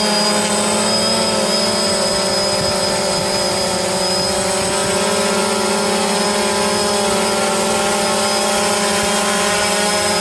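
Quadcopter drone's motors and propellers humming steadily: a constant whine of several held tones over a hiss.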